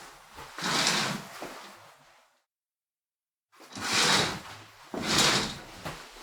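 Window curtain being drawn along its rail: a swish about a second in, then after a short pause two more swishes in quick succession.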